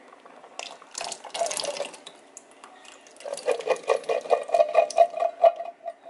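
Canned pinto beans and their liquid poured from the can into a pot of rice and water: a splashing pour of liquid about a second in, then a run of quick wet plops as the beans slide out.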